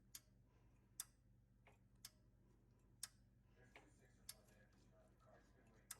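Near silence with faint, sharp clicks roughly once a second over a low, steady hum.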